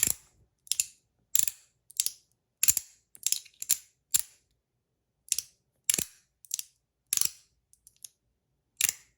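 A metal fidget toy clicking about fourteen times at uneven intervals of roughly half a second. The clicks are sharp, and several come as quick double clicks.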